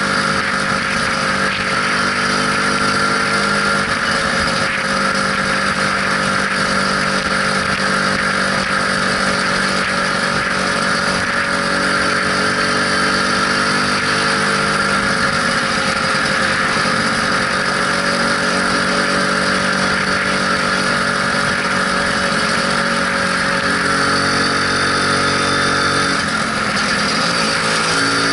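Lambretta SX200 scooter's single-cylinder two-stroke engine running at a steady cruising speed while ridden, with rushing air over it; the engine note drops briefly near the end.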